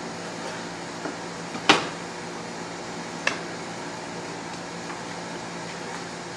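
A steady mechanical hum with a sharp knock a little under two seconds in and a smaller knock about a second and a half later.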